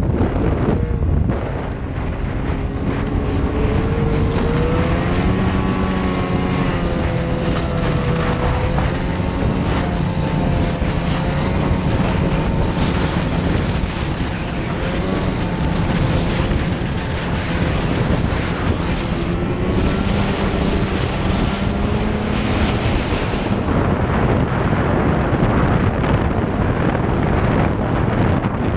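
Snowmobile engine running under way, its pitch rising and falling with the throttle, over a steady rush of wind and track noise.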